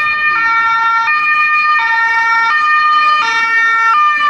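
Ambulance two-tone siren, loud and close, alternating between a high and a low note that switch about every three-quarters of a second.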